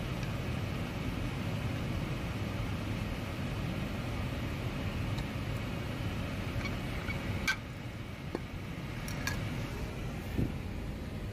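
Steady rush of ventilation and fan noise in an Airbus A320 cockpit. One sharp click comes about seven and a half seconds in, and a few lighter clicks follow near the end.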